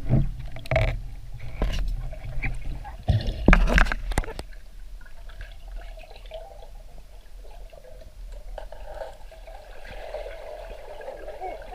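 Water splashing in several loud bursts over the first few seconds, then settling into a steady gurgling.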